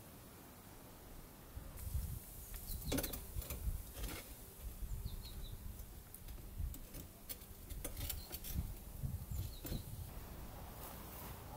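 Scattered light clicks and knocks of hand work on a metal-framed casement window and its handle, with a few short bird chirps.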